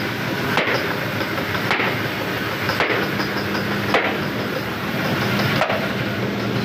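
Rice mill machinery running: a steady loud mechanical clatter over a low hum, with a knock about once a second.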